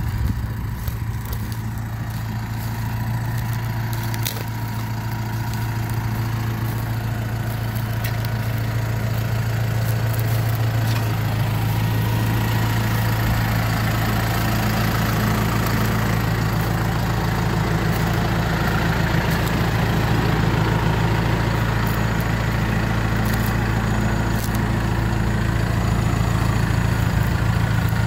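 Massey Ferguson 6445 tractor's four-cylinder diesel engine idling steadily, growing gradually louder over the first ten seconds or so and then holding.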